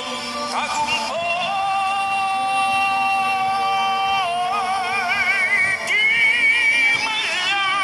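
A woman singing a ballad. She holds one long steady note for about three seconds, then sings on with a wide vibrato and slides between notes near the end.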